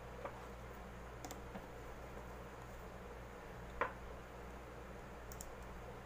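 Small scattered clicks and taps of a plastic wall switch and its fittings being handled and seated in a switch box, with one sharper click about two-thirds of the way in.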